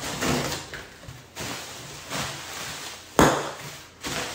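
Cardboard shipping box being cut open and unpacked: scraping and rustling of cardboard and packaging in several short spells, with one sharp knock about three seconds in.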